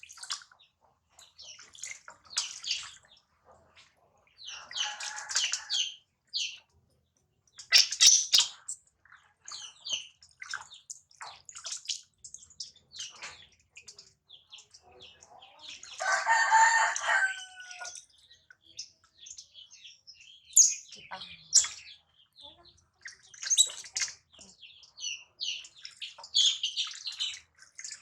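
High-pitched animal calls: short chirps and squeaks come on and off, with one longer, louder cry about sixteen seconds in.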